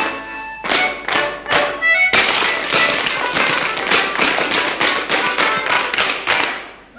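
Clogs striking the floor in quick, rhythmic dance steps over hornpipe music. About two seconds in the music thins and the stepping becomes a dense flurry of taps, which stops just before the end.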